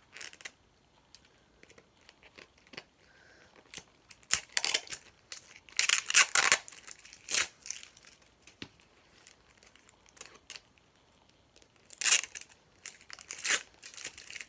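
Thin plastic wrapping crinkling and tearing in irregular bursts as a Mini Brands capsule ball is unwrapped, loudest about six seconds in and again near twelve seconds.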